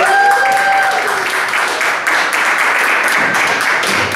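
Audience applauding and clapping steadily to welcome a performer, with one voice calling out on a held high note over the first second.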